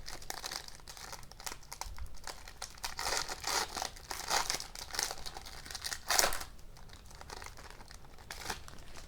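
Foil wrapper of a hockey card pack crinkling and tearing as the pack is opened, with the loudest burst just after six seconds in, then quieter handling.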